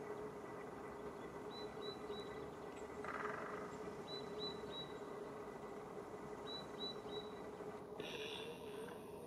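A small bird calling in three runs of three short, high chirps, each run about a second long, over a steady background hiss and a low steady hum.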